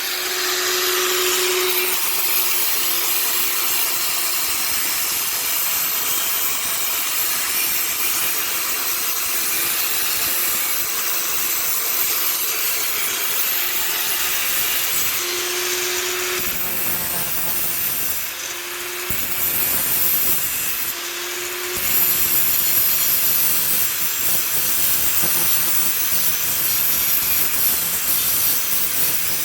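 Steady, loud cutting noise from a tool working through part of a refrigerator door's hinge assembly, a continuous scraping hiss with a faint hum coming and going.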